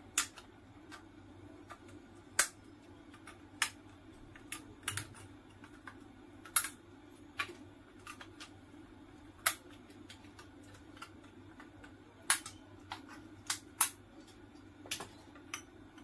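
About a dozen sharp metallic clicks and snaps at irregular intervals as pliers tear spot-welded nickel strip tabs off the lithium-ion cells of a DeWalt power-tool battery pack, over a faint steady hum.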